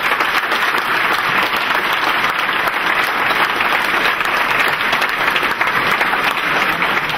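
Large banquet audience applauding: steady, dense clapping that holds at full strength throughout.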